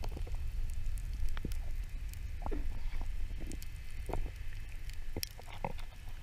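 Underwater sound through a camera's housing: a steady low rumble of moving water with many irregular clicks and crackles, and a faint steady high hum.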